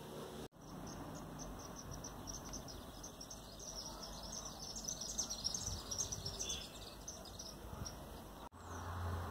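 Many short, high-pitched chirps from small outdoor creatures, coming thickest in the middle, over a faint steady background hiss. The sound drops out sharply twice, shortly after the start and near the end.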